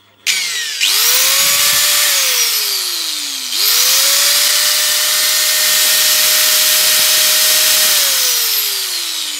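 Saikyo 100 mm, 950 W angle grinder with a paddle switch, test-run with no load. A short run spins up to a steady whine and coasts down after about two seconds; then a longer run spins up, holds steady for about four seconds and winds down near the end.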